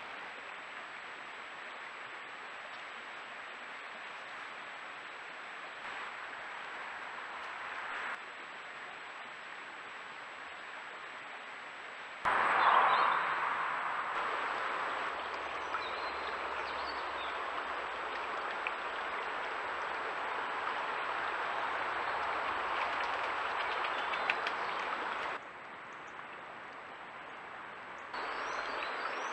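Trail-camera audio of woodland ambience: a steady hiss with a faint high whine from the camera, jumping in level at each change of scene and loudest in the middle stretch. A few short bird chirps come near the end.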